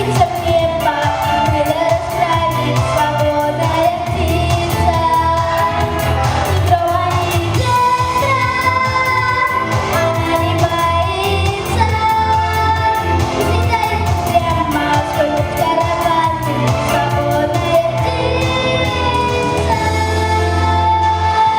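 A solo female voice singing a pop song over a backing track with a steady bass line.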